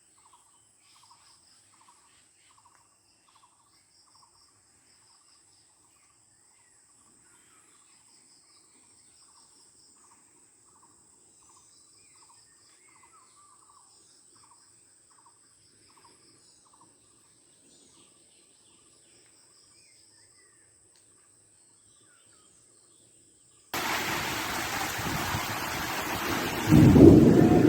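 Faint insects and birds: a steady high insect trill with rows of repeated chirps. About 24 seconds in, heavy rain starts abruptly, and near the end a loud roll of thunder rumbles over it.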